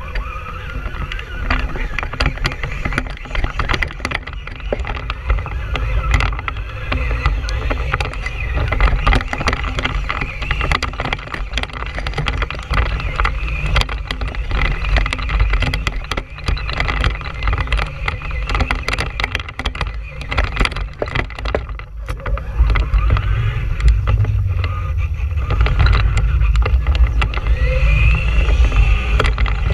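Onboard sound of a Traxxas Stampede 2WD RC monster truck driving, taken from a camera mounted on top of it. There is a steady low rumble of wind and buffeting on the microphone, the motor and drivetrain whine, and frequent knocks and rattles as the truck bounces over the ground.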